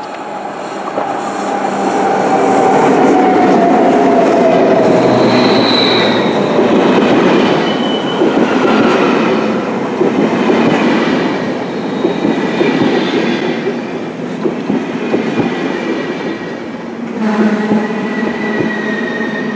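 SBB passenger train, a red electric locomotive hauling double-deck coaches, running along the station platform. Loud rolling wheel-on-rail noise builds over the first two seconds as the locomotive comes past, with a tone gliding down early on and a few brief high squeals.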